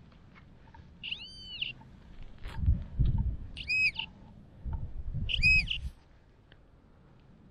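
Metal detector sounding three short, wavering tones that rise and fall in pitch as it passes over a target it reads as iron, with the scraping and rustling of digging in the soil between them.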